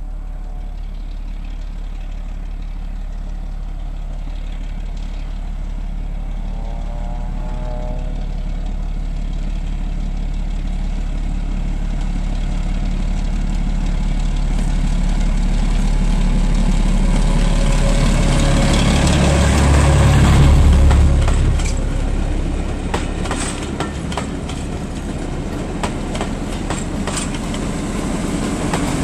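Class 03 diesel shunter's engine running as it heads a short passenger train toward and past the listener, with a steady low hum growing louder to a peak about two-thirds of the way through. After it, the train's wheels click over the rail joints.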